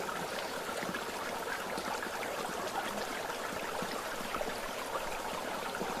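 Shallow rocky stream babbling and trickling over stones, a steady watery rush.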